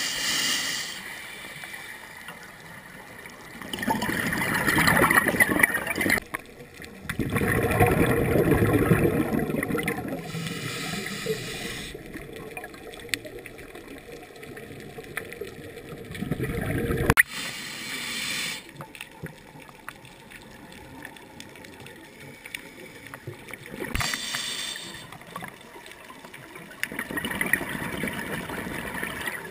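Scuba regulator exhaust bubbles heard underwater: gurgling rushes of bubbles every few seconds as a diver breathes out, with quieter gaps between breaths and a couple of sharp clicks.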